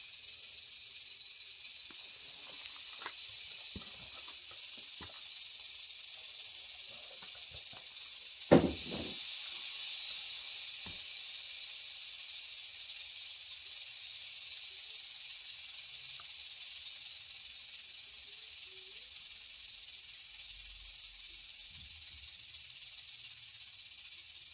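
Steady high-pitched buzz of a juvenile massasauga rattlesnake rattling. About eight and a half seconds in there is one sharp knock, and the buzz then grows louder for a few seconds before settling back.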